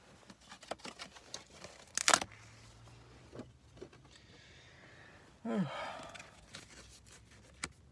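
Scratch-off lottery ticket being scratched: short, irregular scraping strokes across the ticket's coating, with one louder scrape about two seconds in. A brief falling vocal sound, like a sigh, comes about five and a half seconds in.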